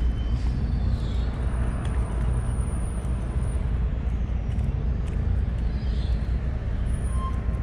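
Steady low rumble of outdoor background noise, with no clear single event standing out.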